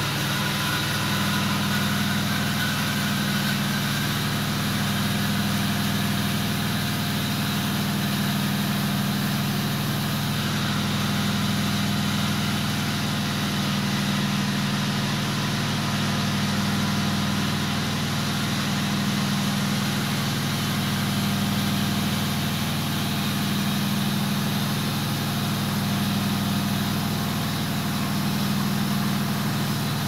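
Miele W5873 Edition 111 front-loading washing machine in its final spin, the drum turning at speed with a steady humming drone.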